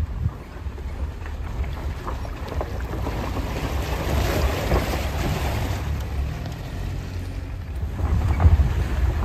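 Open Maruti Gypsy safari jeep fording a shallow muddy stream: a low rumble of engine and wind on the microphone, with water sloshing and splashing under the wheels around the middle as it crosses.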